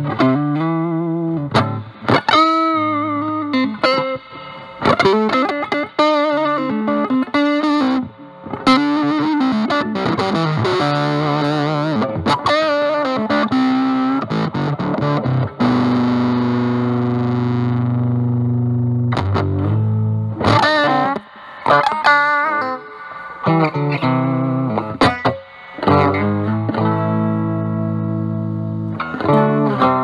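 Fender Stratocaster played through a Dunlop JDF2 Fuzz Face with an NTE158 germanium transistor into a Vox Pathfinder 15R amp's clean channel: fuzzy single-note lead lines with bends and vibrato, and one long sustained note about halfway through.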